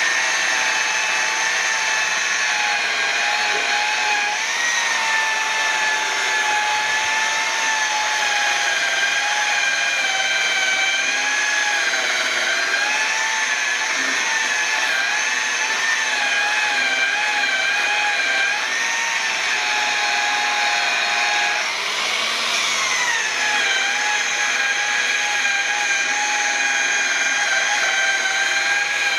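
Corded rotary polisher with a foam pad running steadily, buffing rubbing compound into a plastic headlight lens; its motor whine wavers slightly in pitch. About two-thirds of the way through, the pitch dips briefly and then climbs back up.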